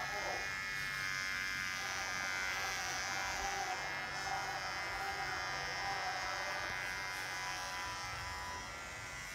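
Cordless electric hair clipper buzzing steadily as it is run through short grey hair close to the scalp.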